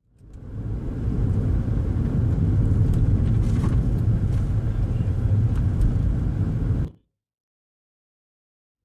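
Steady low rumble of road and engine noise inside a moving car. It fades in over the first second and cuts off abruptly about seven seconds in.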